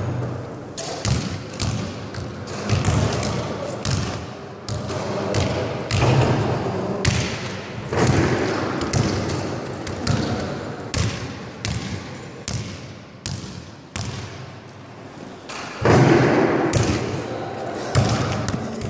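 Basketballs bouncing and thudding on a sports hall floor: a string of irregular impacts, each echoing around the large hall.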